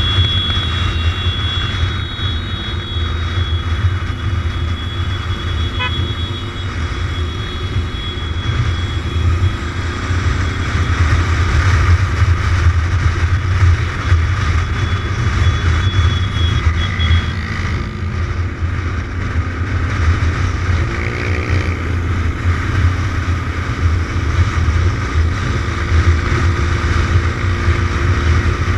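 Kawasaki motorcycle riding at road speed, its engine running steadily under heavy wind rumble on the bike-mounted camera's microphone. About three-quarters of the way in, an engine note rises briefly.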